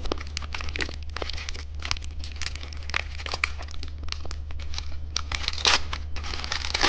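Plastic candy packaging crinkling and rustling as it is handled and opened, a run of irregular crackles with a few louder bursts.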